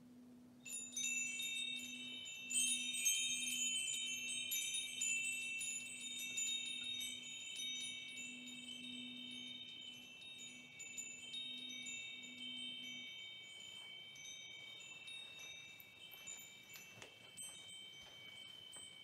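Hanging metal chimes swept by hand: a flurry of bright tinkling strikes for about five seconds, leaving a high ringing chord that slowly fades. Underneath, the faint low hum of a singing bowl dies away about two-thirds through.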